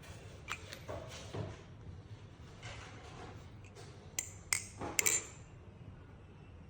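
Baliplus Kraken V3 clone balisong (butterfly knife) being handled and flipped: a few soft clacks of the handles, then four sharp metallic pings with a bright, chime-like ring between about four and five seconds in.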